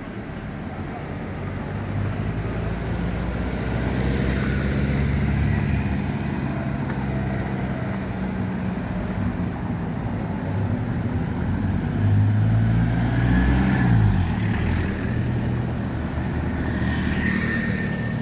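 Road traffic with a motor vehicle's engine running, its low hum growing louder with the pitch rising and falling about twelve to fourteen seconds in.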